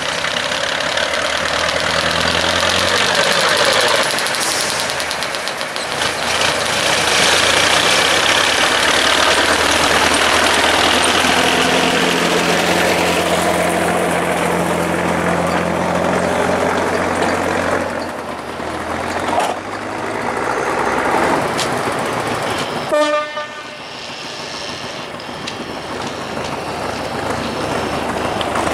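Small diesel shunting locomotive (locotracteur) running and moving past close by, its engine loud and steady with the noise of wheels on rail. Near the end there is a brief horn toot.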